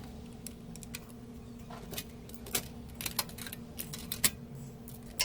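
Irregular light clicks and taps of small plastic and metal parts being handled as a PS4 console is taken apart, over a steady low electrical hum.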